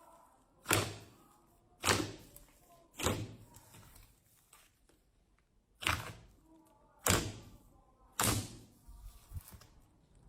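Slime worked by hand, giving six sharp wet smacks in two runs of three, about a second apart, with faint squelching between them.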